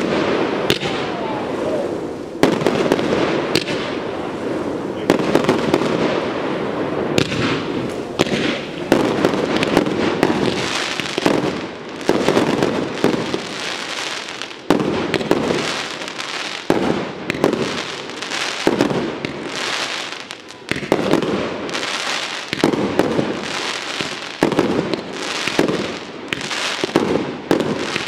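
Aerial fireworks display: comets and shells launching and bursting in quick succession, many sharp bangs over a continuous hissing rush.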